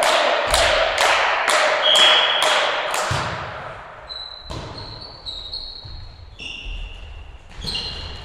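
Volleyball players clapping hands in a steady rhythm, about two claps a second, which fades out about three seconds in. Then the rally: a few sharp hits of the ball, with sneakers squeaking briefly on the wooden gym floor.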